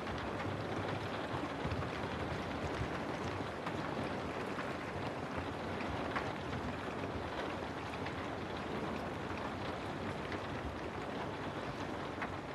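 Steady rain falling, an even hiss with scattered drop ticks, laid in as a background sound bed.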